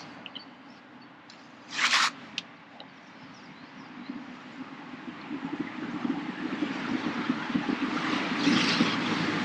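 A brief rustling scrape about two seconds in, then the steady engine noise of an aircraft passing over, growing gradually louder toward the end.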